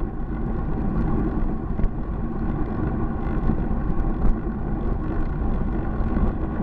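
Steady wind rumble on a bike-mounted camera's microphone, mixed with the engine and tyres of a double-decker bus running close alongside. A few small ticks rise above it.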